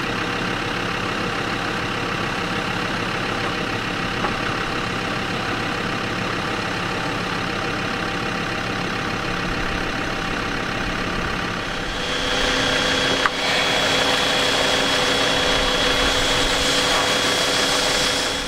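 Land Rover Discovery 2 engine running steadily at idle. About twelve seconds in it gets a little louder, and a steady high whine and a lower hum join it, with a single click just after.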